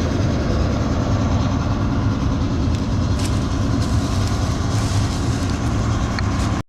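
Combine harvester running steadily: a loud, even engine and machinery drone, which cuts off suddenly just before the end.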